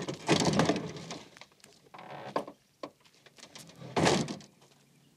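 An old sedan's door is unlatched and pushed open with a click and a scrape as someone climbs out. Smaller knocks follow, then a second loud knock about four seconds in.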